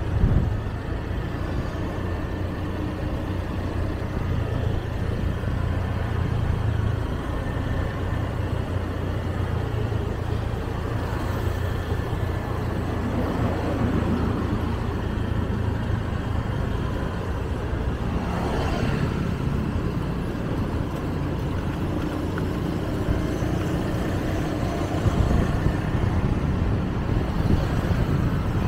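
Steady engine and tyre rumble of a vehicle driving on an elevated road, with a brief swell of traffic noise about two-thirds of the way in.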